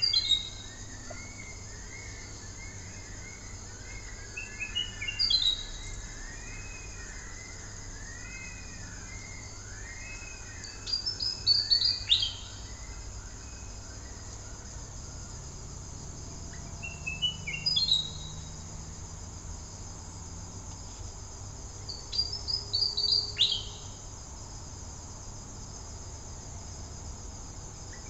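Willie wagtail singing its night song: short phrases of quick, rising, stepped whistled notes, repeated about every five to six seconds. A steady high insect trill runs underneath, and fainter wavering calls of other birds come in the first third.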